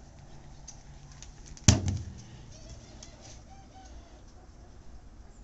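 A single loud thump about a second and a half in, dying away within half a second, over quiet outdoor background.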